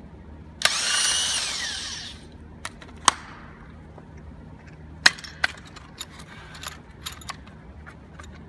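A power drill runs for about a second and a half, its whine falling in pitch as it slows, then sharp metallic clicks and knocks from the steel swaging tool and cable being handled.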